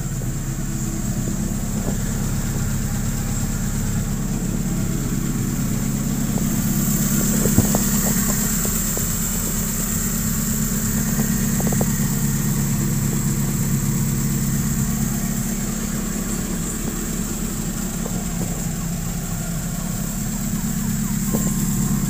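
Engine of a modified off-road 4x4 idling steadily close by, with one sharp click about seven and a half seconds in.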